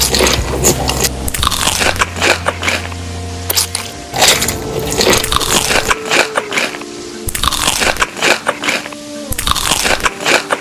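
Crunchy food being bitten and chewed close to the microphone: a series of loud crunches every second or two, over background music.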